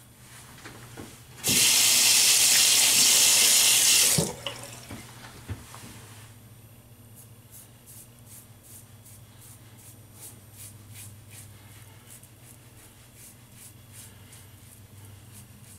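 A faucet runs into a sink for nearly three seconds, starting and stopping abruptly. Later a Pearl Hammer double-edge safety razor scrapes through lathered stubble in a quick run of short, crisp strokes.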